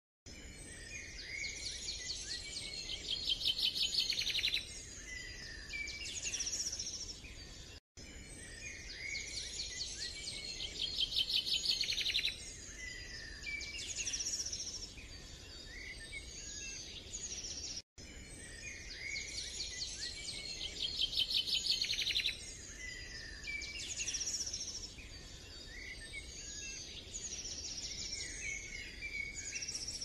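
Birds chirping, with a fast trill that comes around again and again, as a looped nature-sound recording. It is twice broken by a brief gap in the sound.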